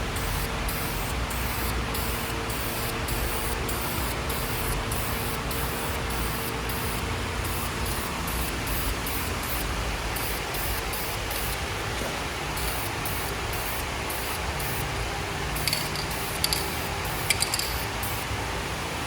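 Steady hissing spray running without a break, over a faint steady hum, with a few sharp clicks near the end.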